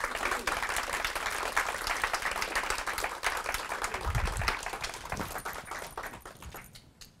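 Audience applauding, a dense run of many hand claps that thins out and dies away near the end.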